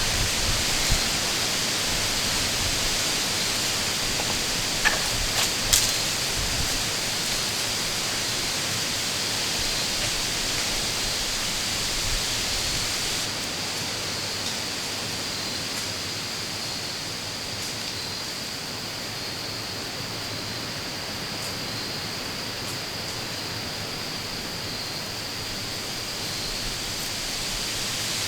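Steady rushing of a strong wind through the woods, with a few small clicks about five seconds in.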